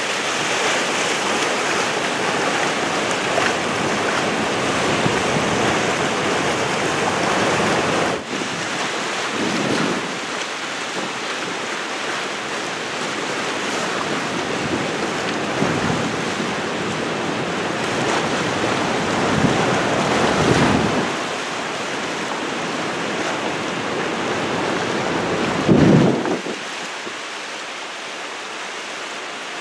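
River water rushing through the open spillway gates of a dam and churning through rapids below, a steady heavy wash of the river swollen by spring high water. Deeper gusts of wind on the microphone swell up now and then, the strongest near the end.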